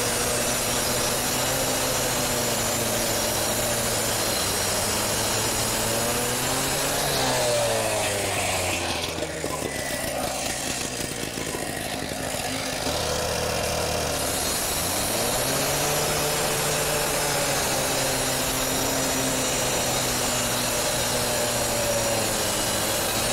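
Gas-powered handheld cut-off saw cutting through concrete retaining-wall cap blocks at full speed. About seven seconds in it drops to idle, then revs back up around fifteen seconds in and cuts again.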